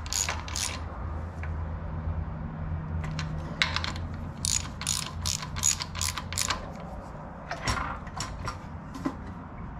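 Hand socket ratchet clicking in several short runs of quick clicks as torque converter mounting bolts are tightened, the nuts held with a wrench.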